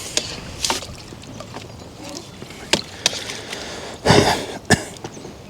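Scattered short splashes and knocks from handling a freshly landed F1 carp and its tackle at the water's edge, with a louder splash about four seconds in.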